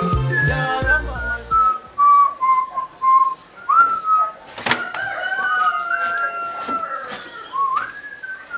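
A person whistling a wandering tune of short, sliding notes, with one sharp click about halfway through. African pop background music cuts off in the first two seconds.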